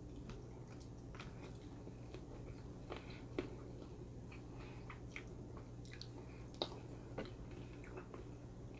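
Close-miked chewing of a McRib sandwich, faint wet mouth clicks and soft crunches scattered over a low steady hum.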